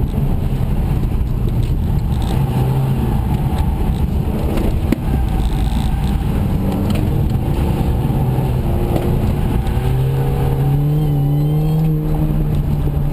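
MINI Cooper S JCW GP's four-cylinder engine driven hard through an autocross course, its pitch rising and falling with the throttle and climbing in the last few seconds, heard from inside the car. A single sharp knock sounds about five seconds in.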